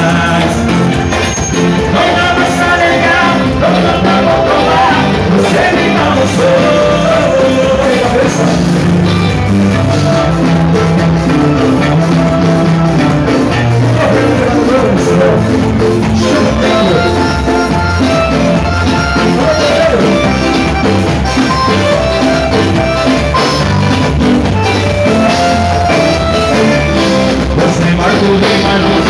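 Live band playing a song, with a male lead vocal, electric guitar, bass guitar, keyboard and conga drums. The melody line wavers like a singing voice over a stepping bass line, continuous and loud.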